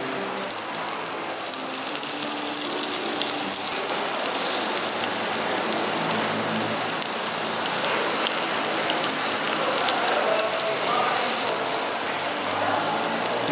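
Steady hiss of a mookata buffet restaurant, with grills sizzling, and faint held tones underneath.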